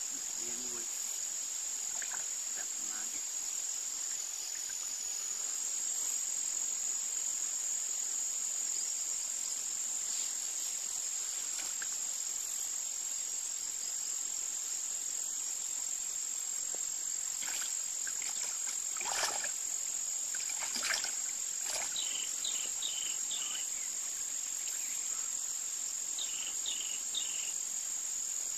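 Insects trilling in a steady, high-pitched drone. A few brief noises stand out about two-thirds of the way through, and short runs of chirps come twice near the end.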